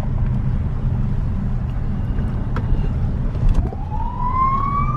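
Steady low rumble of a car rolling slowly, heard from inside the cabin. About three and a half seconds in, a siren wail starts, climbing slowly in pitch.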